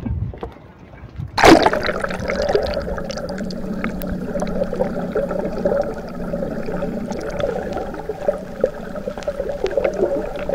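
A sudden splash about a second and a half in as the camera plunges into the sea, then steady muffled bubbling and gurgling heard with the microphone underwater.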